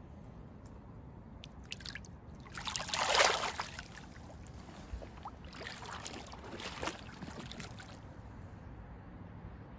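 A released freshwater drum splashing in shallow water as it swims off. The loudest splash comes about three seconds in, with a second, weaker spell of splashing a few seconds later.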